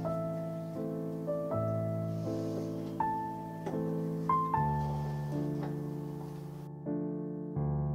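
Background music: slow solo piano, chords with a melody note struck about once a second, each left to ring and fade.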